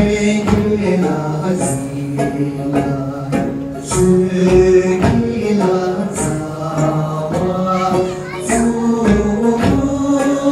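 Group singing of a Tibetan gorshey circle-dance song, with a steady rhythmic beat running under the voices.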